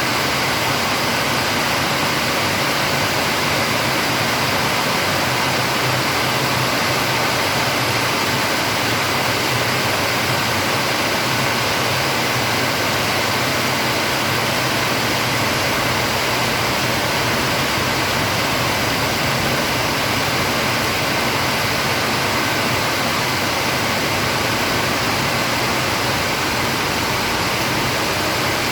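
Steady rain falling: a dense, even hiss with no single drops or other sounds standing out.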